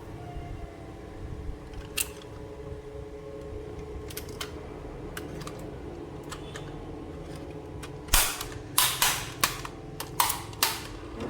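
Plastic toy pieces and packaging being handled: scattered light clicks and taps, then, from about two-thirds of the way in, a run of louder, short crackling rustles.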